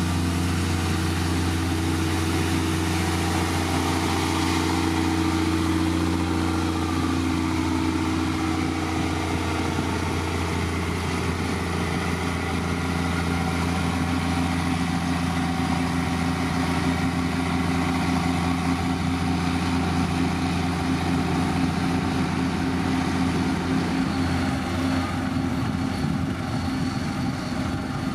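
Diesel engine of a heavy road-building machine running steadily, a low even drone.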